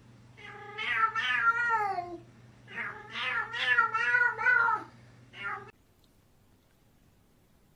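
Domestic cat meowing: two long, drawn-out, wavering meows followed by a short third one.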